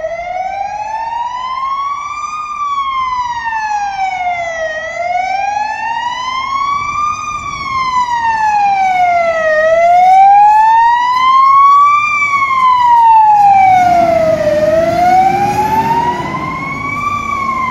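Fire engine siren wailing in slow, even sweeps up and down, a rise and fall about every five seconds. The truck's engine rumble grows under it about two-thirds of the way in as the truck passes close by.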